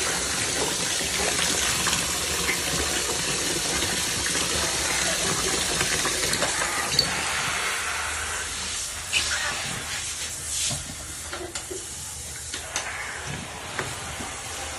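Water running steadily during a cat's bath. It eases off about eight seconds in, and a few light knocks follow.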